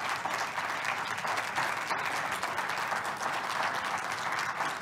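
Congregation applauding: many hands clapping at a steady level.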